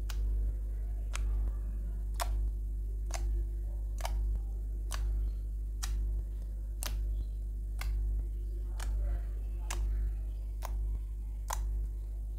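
Slime being poked with fingertips: sharp little clicks and pops as the fingers sink in and pull out, about one a second, over a steady low hum.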